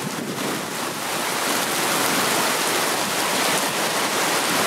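Torrential rain pouring down onto flooded tarmac, a dense steady hiss of drops that grows a little louder about a second in.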